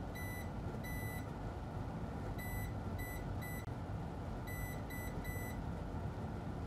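Multimeter continuity beeper giving short beeps of one steady pitch, mostly in runs of three, as the needle probes touch each of the battery connector's three ground pins: each beep confirms that pin connects to ground. A low steady hum sits under the beeps.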